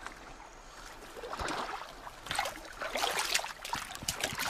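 Water splashing and sloshing in irregular bursts, growing louder from about a second and a half in.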